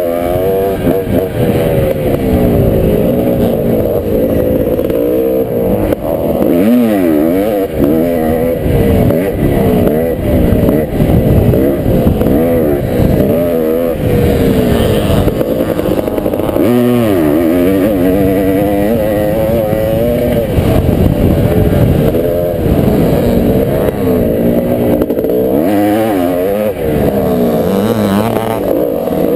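Vintage motocross motorcycle engine under race throttle, its pitch climbing and dropping again and again as the rider works through the gears and corners. Heard muffled from a helmet-mounted camera.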